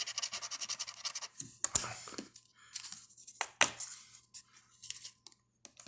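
A coin scratching the latex coating off a paper lottery scratch-off ticket in quick strokes. Then come a few sharp clicks and taps as the ticket card is handled.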